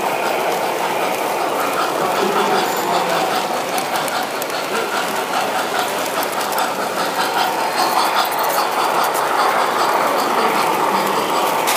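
O-gauge three-rail model steam locomotive running past close by: a steady rumble of its motor and wheels on the metal track, with fine clicking over the rail joints.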